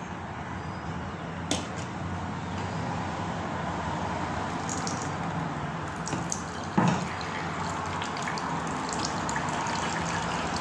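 Blended watermelon juice trickling through a plastic strainer into a glass bowl, a steady pouring and splashing. A sharp click about a second and a half in and a louder knock near the middle.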